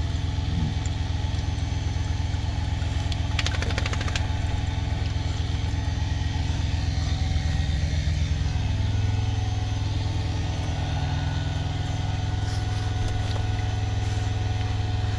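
Truck's diesel engine idling, a steady low hum with an even pulse. A brief rapid rattle of clicks about three seconds in.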